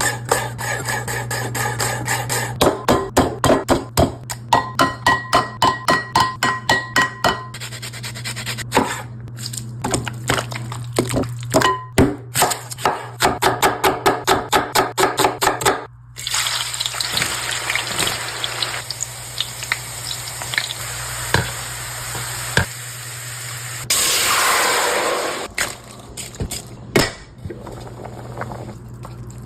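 Cooking sounds: about sixteen seconds of quick, evenly spaced knocks with a beat-like rhythm, then a steady hiss like food frying in a pot, with a louder rushing gush of about a second and a half near the end.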